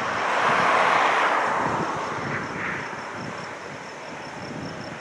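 Gulfstream V business jet's Rolls-Royce BR710 turbofans rushing during the landing roll just after touchdown. The noise is loudest about a second in, then fades steadily as the jet rolls away down the runway.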